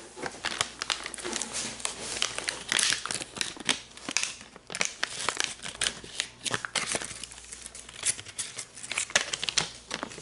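Foil cigarillo pouch crinkling and crackling as it is squeezed and handled close to the microphone, in dense bursts of sharp crackles with short lulls.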